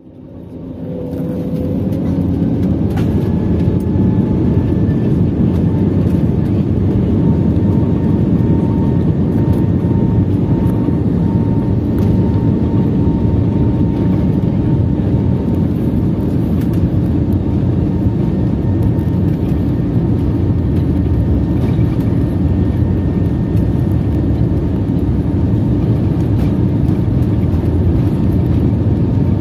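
Jet airliner heard from inside the cabin on its takeoff roll: a steady deep engine roar and runway rumble. It builds out of quiet over the first few seconds, then holds. A thin whine above the roar fades out about halfway.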